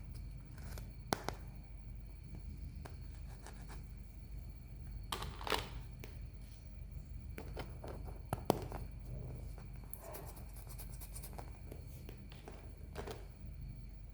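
Toy and packaging being handled by hand: scattered light clicks and taps, with a brief scraping rustle about five seconds in and a sharper click a few seconds later.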